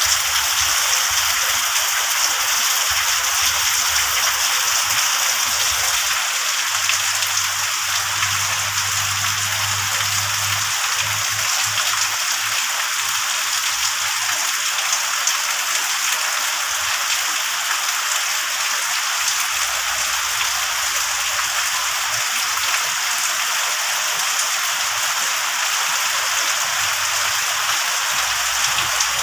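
Heavy rain falling steadily, splashing into puddles and pouring off roof edges.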